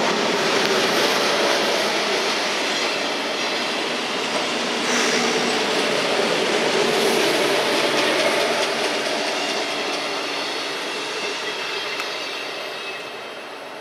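SBB Domino electric commuter train rolling past close by, its wheels running steadily over the rails. The sound fades over the last few seconds as the train draws away.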